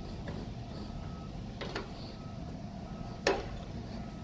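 Two sharp metal knocks, the second louder, as a bench vise is cranked down on a battery-cable lug to crimp it. A steady low hum and a faint high beep repeating about once a second run underneath.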